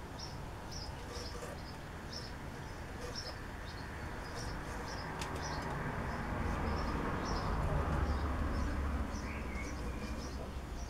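A small bird repeating one short, high chirp about two or three times a second, steadily and without a break. Under it is a low rumble that swells to its loudest about eight seconds in, then eases.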